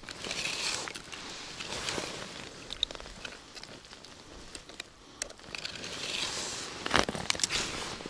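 Crinkling, crackling handling noise with scattered sharp clicks, from fishing line being worked up by hand through an ice hole while it is snagged on weed. The loudest clicks come about seven seconds in.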